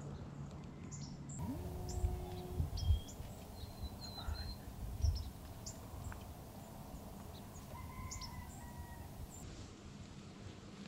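Scattered bird calls: short chirps and whistles, with a few dull low thumps between about two and five seconds in.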